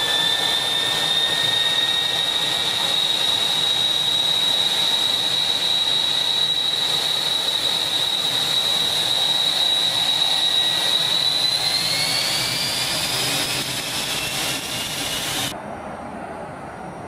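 L-39 Albatros jet trainer's Ivchenko AI-25TL turbofan heard from inside the cockpit: a loud, steady high whine that rises in pitch in its last few seconds as the engine spools up. Then it cuts abruptly to fainter jet noise heard from outside.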